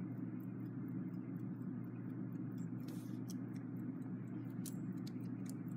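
Westclox Big Ben Chime Alarm clock movement running, its escapement giving quick light ticks over a steady low hum. The balance wheel is swinging weakly in the freshly cleaned but still unoiled movement.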